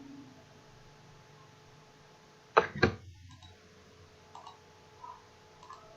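Two sharp clicks a fraction of a second apart about two and a half seconds in, from a computer being worked at a desk, followed by a few much fainter clicks, over a faint steady hum.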